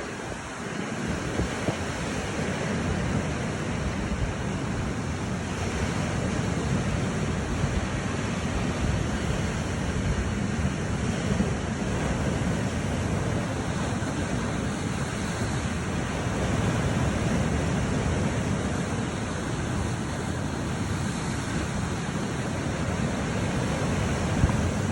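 Lake Superior surf: heavy waves breaking on the shore in a continuous wash that swells and eases slowly, with wind rumbling on the microphone.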